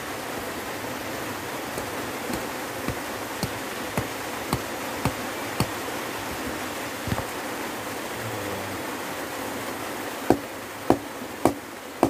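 Steady rush of stream water, with sharp knocks: a run of about six, roughly half a second apart, in the first half, then three louder knocks about half a second apart near the end.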